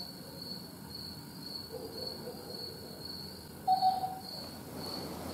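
Crickets chirping steadily, a high chirp about twice a second. A short, louder low tone sounds once, a little under four seconds in.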